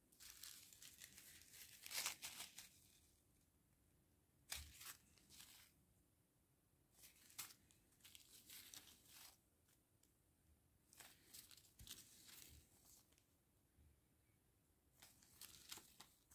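Small clear plastic zip bags of diamond-painting drills crinkling as they are handled, in several short, faint bursts with pauses between.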